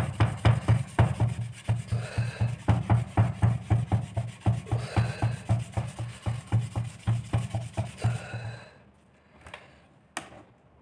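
Sandpaper rubbed back and forth on the metal soleplate of an electric iron to scour off burnt-on grime, in quick strokes about three or four a second, each with a dull thump and a scrape. The scrubbing stops shortly before the end.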